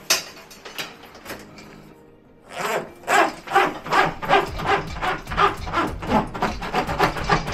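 Electrical wires being pulled through a flexible plastic conduit with a fish tape: rubbing, ratcheting strokes come in a steady rhythm of two to three a second from about two and a half seconds in, after fainter scraping before that.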